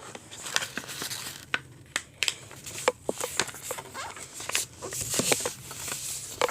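A sheet of thick paper being folded and creased by hand: irregular crinkles and sharp crisp clicks.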